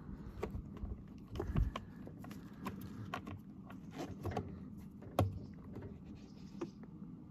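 Plastic parts of a Thetford Aqua Magic IV toilet's flush mechanism clicking and tapping as they are worked into place by hand, with a sharper click about five seconds in.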